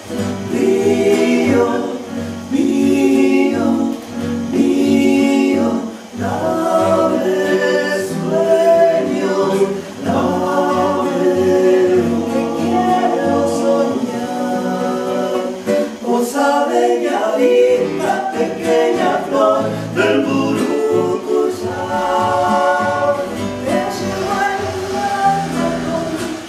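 Several voices singing a slow folk song in harmony, with a classical guitar accompanying; the word "río" is sung about a second and a half in.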